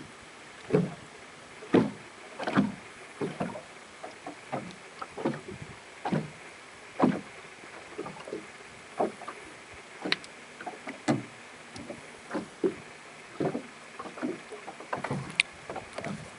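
Small sea waves lapping and slapping against something close by, in irregular splashes one to three times a second over a steady wash.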